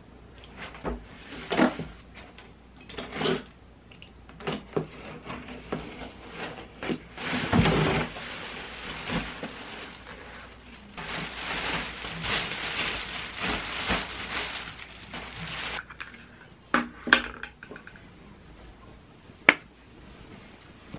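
A large cardboard box being cut open and unpacked: a blade scraping along the packing tape, the cardboard flaps pulled open, then packaging rustling for several seconds, with a couple of sharp clicks near the end.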